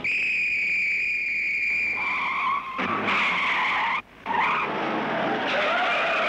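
Cartoon sound effect of car tyres screeching in a skid: a long steady high screech, then rougher screeching that breaks off for a moment about four seconds in and comes back with a wavering pitch.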